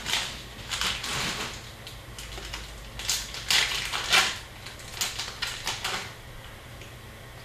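Upper Deck hockey trading cards being handled, sliding and snapping against one another in an irregular run of short rustles and clicks that thins out after about six seconds.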